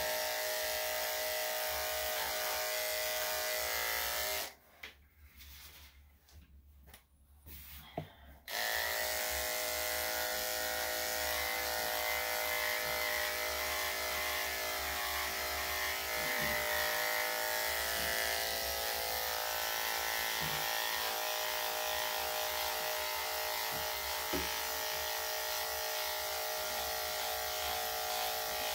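Corded electric dog clippers with a #10 blade running as they shave a dog's coat: a steady, even motor hum. About four seconds in the hum stops for about four seconds, then starts again and runs on.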